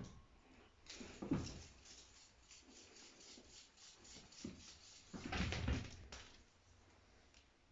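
Rubbing and scuffing noises of a cat at play, with a few knocks, loudest about a second in and again at about five seconds in.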